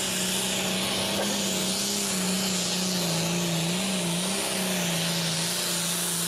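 Diesel pulling tractor at full throttle under load, dragging a weight-transfer sled. It is a loud, steady engine note that wavers slightly in pitch, with a harsh rushing noise over it.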